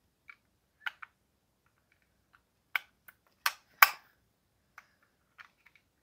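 Magnet-held plastic top cover of a Logitech Pebble M350 mouse being lifted off and snapped back on: a few sharp plastic clicks with faint ticks between, the loudest two close together near four seconds in.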